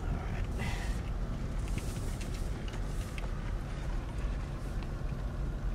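Car interior: a steady low rumble of the engine and tyres as the car rolls slowly and pulls up to park, with a few faint clicks.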